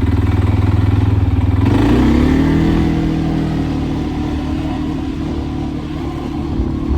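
ATV (quad) engine running with a rapid, even beat, then revving up about two seconds in and running on steadily, slowly getting quieter.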